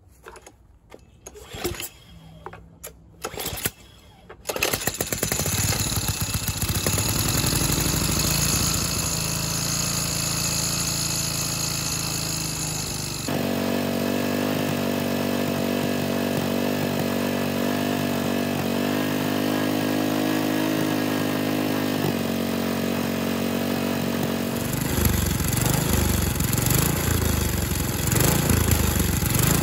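Tecumseh Snow King single-cylinder four-stroke snowblower engine pull-started with a few short tugs, catching about four and a half seconds in and then running steadily. Its tone shifts abruptly around the middle and again near the end.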